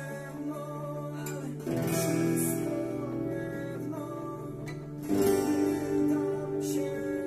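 Acoustic guitar strummed in short eighth-note downstrokes on D major, E minor and G major chords, played along with a rock band's recording.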